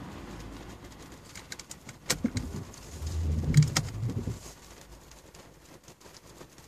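Car windscreen wipers sweeping across the rain-wet glass: sharp clicks and a low hum from about two to four and a half seconds in, over the faint steady sound of rain on the car.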